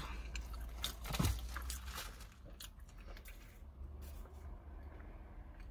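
Quiet eating and drinking noises: soft clicks, rustles and sticky handling sounds, then a sip from a plastic cup through a straw, over a steady low rumble. A short falling hum from the voice comes about a second in.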